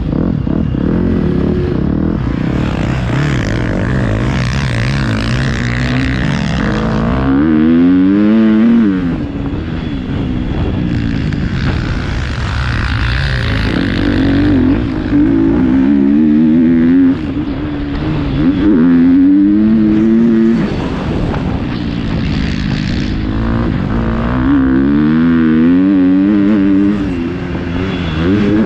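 Motocross bike's engine revving hard and easing off as it is ridden around a dirt track, its pitch climbing steeply and dropping back several times as the throttle is opened and shut.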